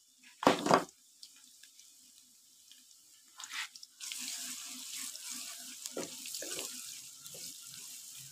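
Chopped onions frying in hot ghee in a wok: a steady sizzle from about four seconds in, with a wooden spatula scraping and tapping the pan as they are stirred. A single knock about half a second in.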